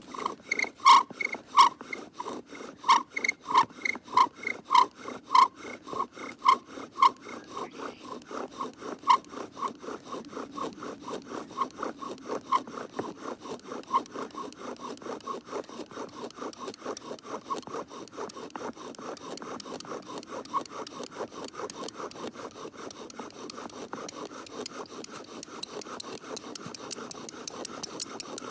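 Bow drill spindle worked back and forth in a hearth board notch: squeaky strokes at first, quickening about eight seconds in to a faster, steady rasp. The wood was cut that day and the fire-maker thinks it still holds some moisture.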